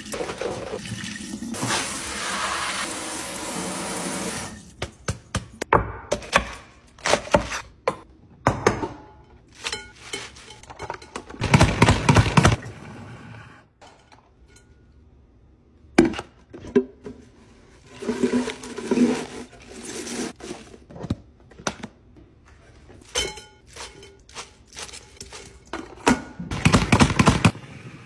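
Kitchen faucet sprayer running steadily over greens in a steel sink for the first few seconds, then clicks and knocks of a plastic clamshell salad container being opened and handled, with a loud rustling burst near the middle. Near the end a push-pump salad spinner whirs briefly as it is pumped.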